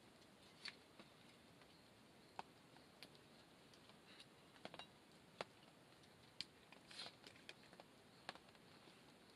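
Faint, irregular crackles and pops from a small wood fire burning in a metal fire stand, a dozen or so sharp ticks spread unevenly over a quiet background hiss.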